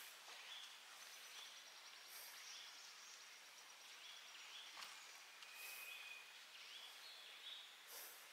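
Faint outdoor ambience with a steady hiss and small high chirps repeating about every half second, with a thin held whistle partway through.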